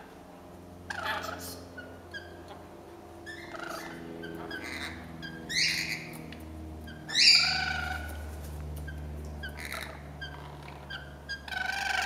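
Rainbow lorikeets calling: a string of short screeching calls that drop in pitch, the loudest about seven seconds in, with small chirps between them.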